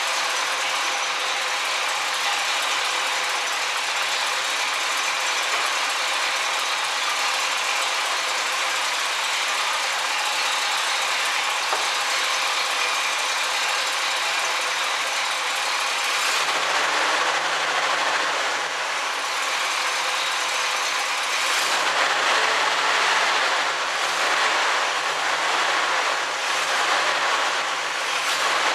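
The 1967 Chevy Camaro's engine idling with a steady mechanical clatter, a little louder in the last third.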